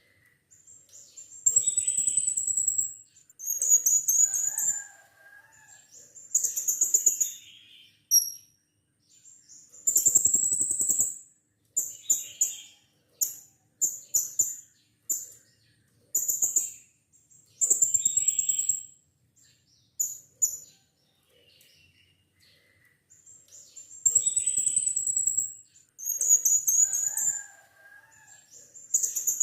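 Blue-crowned hanging parrot (serindit) calling: shrill, very high-pitched trilled calls in short bursts of one to two seconds, repeated with brief pauses between them.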